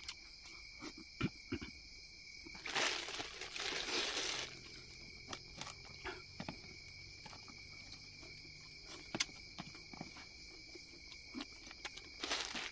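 Night insects such as crickets chirring steadily in the background, with a plastic bag crinkling for a couple of seconds about three seconds in as it is handled, and scattered small clicks and rustles.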